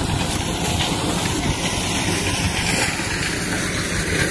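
Tractor engine running steadily while the implement it drives chops through the corn: a low engine hum under an even rushing hiss.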